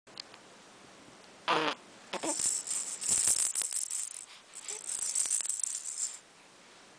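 A baby's toy rattle shaken in two spells of quick, dense rattling, after a single short loud burst about a second and a half in.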